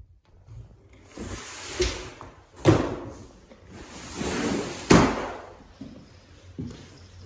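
Footsteps and sharp thuds on bare wooden subfloor boards, with two loud knocks about two and a half and five seconds in and rustling between them.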